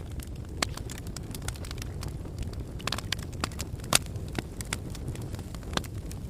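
Barbecue fire crackling, with irregular sharp pops over a steady low rumble.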